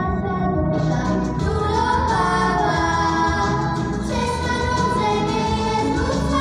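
A small group of children singing a song together into microphones, amplified through the hall's loudspeakers, over an instrumental accompaniment.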